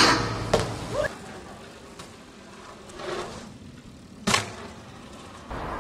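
BMX bike riding on concrete: a couple of sharp clacks in the first second, a short scuff of tyres around three seconds in, and one loud clack about four seconds in, like the bike landing. A steady outdoor hiss comes in near the end.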